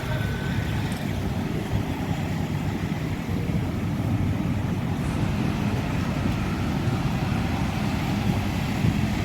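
Steady low rumble of passing vehicles at a busy road crossing, with wind buffeting the microphone.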